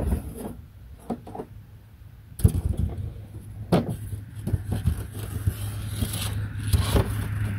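A motor engine's low steady hum sets in about two and a half seconds in and grows gradually louder, as if approaching, with scattered knocks and rustles of handling on top.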